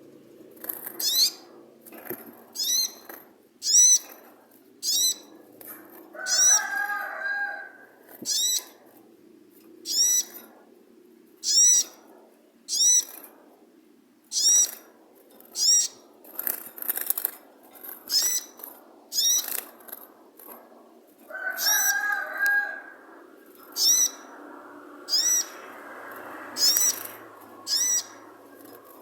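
A songbird repeating a short, sharp, high call about once a second. A lower warbling phrase breaks in twice, about six seconds in and again near twenty-two seconds.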